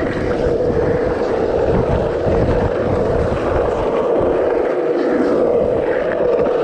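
Skateboard wheels rolling steadily over a concrete pump track, a continuous rolling drone with low rumble.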